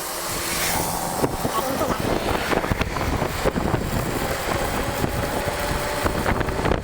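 Wind buffeting the microphone: a steady low rumble with frequent crackling gusts from about a second in.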